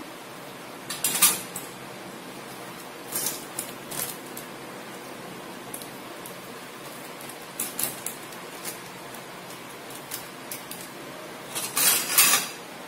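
Small kitchen handling sounds: a steel spoon clinking against a stainless steel bowl and scissors snipping open a paper sachet, a scatter of short clicks and rustles over a faint steady hiss. The loudest clinks come about a second in and again near the end.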